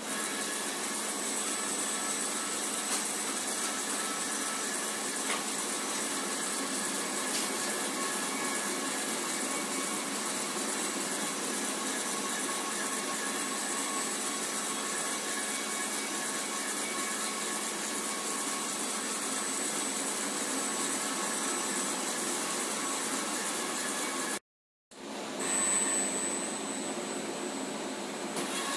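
Steady machine whir with a thin, high, steady whine above it, and no welding arc crackle. It cuts out for an instant near the end.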